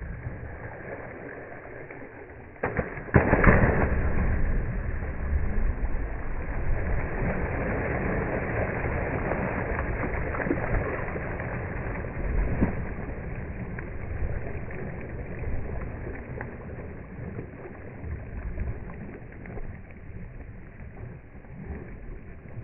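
German shorthaired pointer splashing through shallow lake water, with a continuous rushing splash. A loud splash comes about three seconds in, and the splashing is quieter in the second half.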